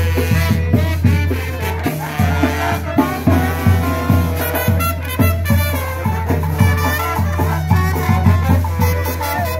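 Cimarrona band of brass and drums playing lively Latin dance music with a steady beat, about two strong beats a second.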